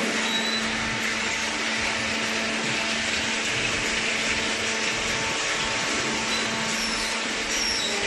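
Steady mechanical hum of a running hydraulic cardboard baler, a constant low tone over an even hiss.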